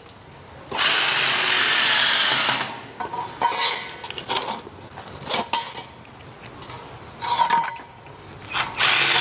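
A power tool runs for about two seconds, followed by scattered clicks and knocks. A short burst of the tool comes a little past the seven-second mark, and it starts running again near the end.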